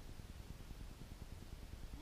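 Low, steady wind rumble buffeting the microphone.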